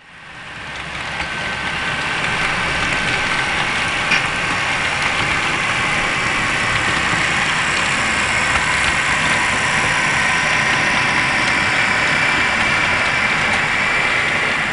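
Diesel locomotive engine sound running steadily for a passing HO-scale freight train, with a rumble under it. It fades in over the first couple of seconds, with one small click about four seconds in.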